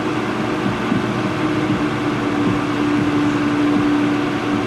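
Steady whir of a small electric blower, with a low steady hum that grows stronger in the second half.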